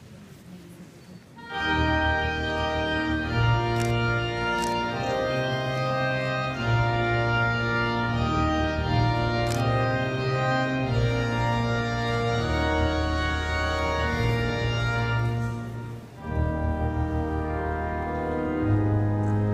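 Cathedral pipe organ playing slow held chords over deep pedal bass notes, coming in about a second and a half in and breaking off briefly near the end before resuming.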